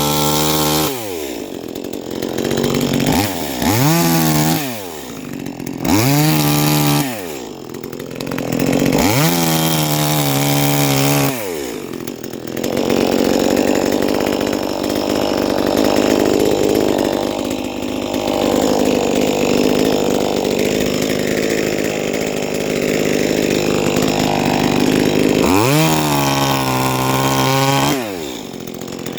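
Huspanda HP2500S two-stroke chainsaw revved up and let fall back several times. It then runs under steady load for about thirteen seconds, pitch held lower with a rasping edge, as the chain cuts through wood. It is revved up and down again near the end.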